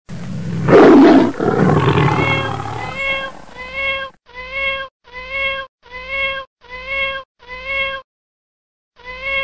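A loud, rough, roar-like tiger sound about a second in. Then a high kitten meow repeats at even spacing, about every three-quarters of a second, each call the same, and stops after about eight seconds with one more near the end.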